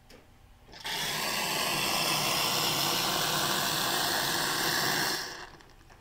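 Commercial espresso machine's steam wand opened and venting steam: a loud, steady hiss that starts abruptly about a second in and stops a little after five seconds, with a faint tone rising in pitch underneath. It shows the boiler is up to steam pressure and the steam valve works.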